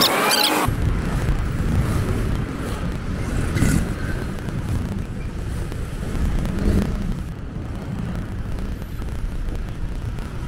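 Outdoor street ambience: wind buffeting the microphone in a choppy low rumble that starts suddenly about half a second in, over the sound of passing traffic.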